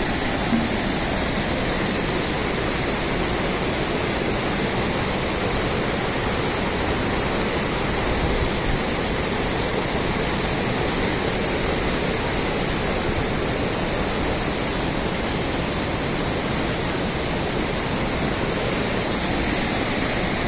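Shikhar Fall waterfall on the Rispana River, water pouring down in a steady rush.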